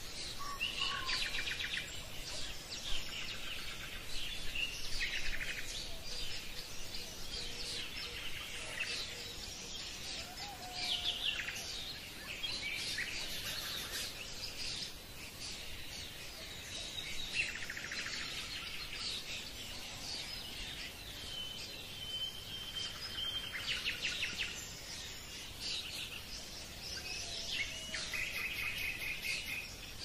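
Birds chirping and trilling in many short overlapping calls over a faint steady hiss, with one short held whistle a little past the middle.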